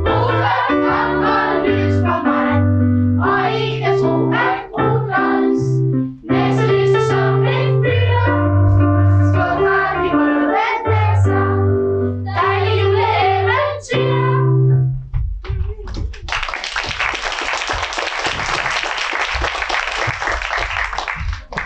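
A song sung to a piano or keyboard accompaniment, ending about fifteen seconds in, followed by audience applause.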